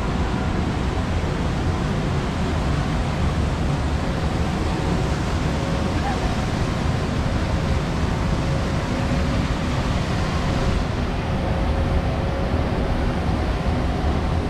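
Steady rushing of water around a river rapids raft, with a faint steady mechanical hum underneath.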